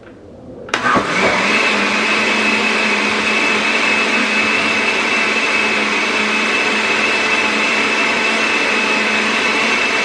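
Countertop blender switched on about a second in and running steadily, beating torn thin paper and water into paper pulp. A steady high whine sits over the motor's lower hum.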